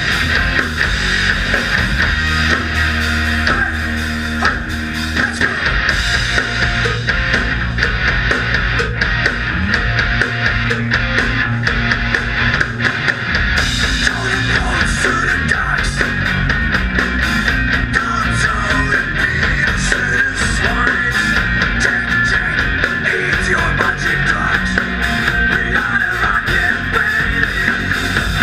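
A rock band playing live and loud: electric guitars through stage amplifiers, with a drum kit keeping the beat.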